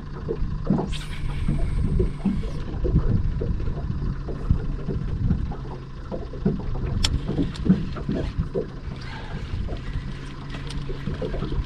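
Water lapping and slapping against the hull of a small fishing boat, with wind on the microphone and a steady low hum. A brief high-pitched whir comes about a second in while a fish is being played on a spinning rod.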